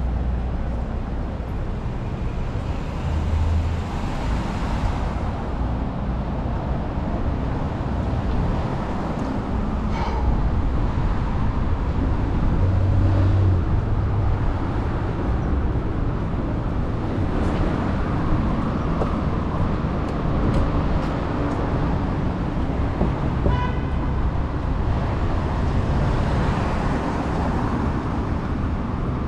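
City street traffic: cars passing with a steady road noise and low engine rumble, and a brief car horn toot near the end.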